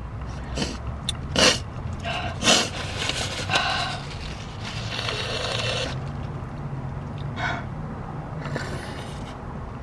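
Small eating noises, mouth clicks and short breaths, from someone eating vanilla ice cream from a small cup to cool her mouth after very hot wings, with a paper napkin rustling about five seconds in, over a steady low hum.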